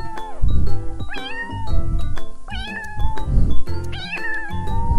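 Domestic cat meowing about three times, each meow rising then falling in pitch, over background music.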